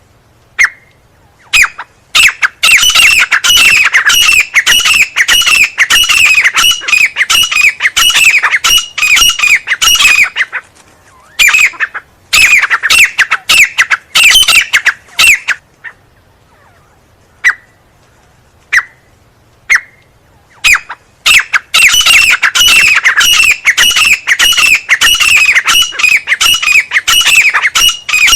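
A teetar (francolin) calling: loud single notes, then three long runs of rapid, falling call notes, about three a second, each run broken off after several seconds.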